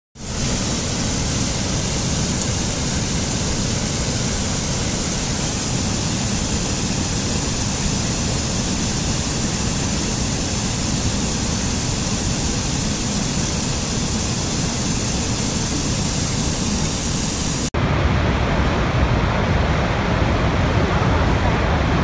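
Water cascading over rocks in a boulder-strewn mountain stream, a steady rushing hiss. Near the end it cuts suddenly to the louder, deeper rush of a large waterfall.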